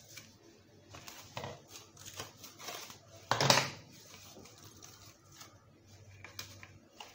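Plastic cling film crinkling and rustling as it is stretched and pressed around the rim of a bowl of dough, in short scattered bursts with one louder burst about three and a half seconds in.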